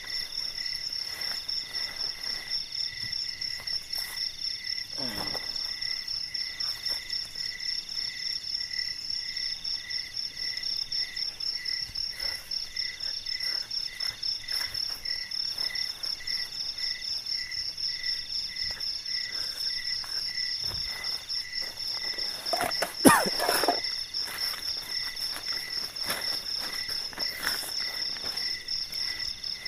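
Night insects chirring steadily in forest undergrowth: a fast high trill over a lower chirp that repeats a little under twice a second. Faint rustles and knocks come from a tent being handled and set up, with one sharp, louder knock about 23 seconds in.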